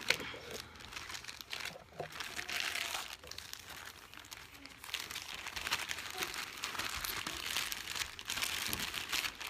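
Crinkling and rustling from something being handled, with scattered small clicks, coming and going in patches.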